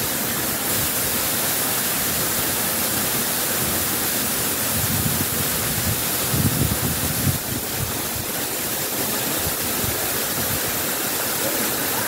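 A tall waterfall plunging onto rocks and into a pool, a steady, loud rush of falling water. A few low bumps stand out about five to seven seconds in.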